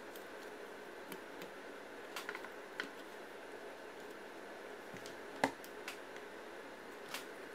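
Scattered light clicks and taps of a screwdriver and the metal housing of a vintage Black & Decker D300 drill being handled as its screws are taken out, the sharpest tap about five and a half seconds in, over a steady background hiss.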